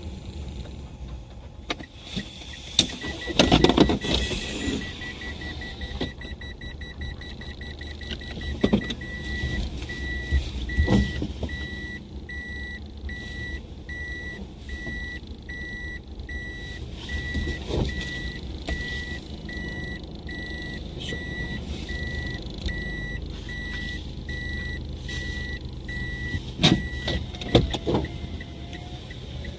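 A car's in-cabin reversing or parking-sensor beeper: a high electronic pip repeating, rapid at first and then slower, while the car is manoeuvred into a parking space. It stops near the end as the car comes to rest. Low engine and tyre rumble runs underneath, with a few knocks from the cabin.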